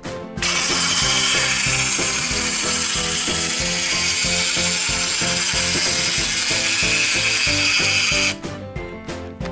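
Plastic gear mechanism of a motorized Pororo amusement-park slide toy running as its lift carries a toy truck up the track: a loud, steady clatter that starts about half a second in and cuts off suddenly near the end. Background music plays underneath.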